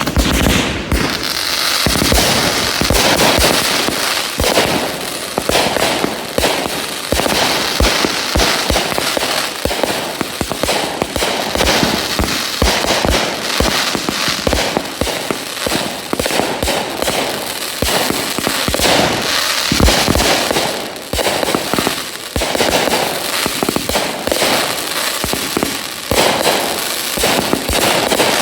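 A full case of four Brothers Pyrotechnics Atom Bomb 500-gram 36-shot cakes firing together: a dense, continuous barrage of mortar launches and aerial breaks bursting close overhead, mixed with the crackling of the shells' tails.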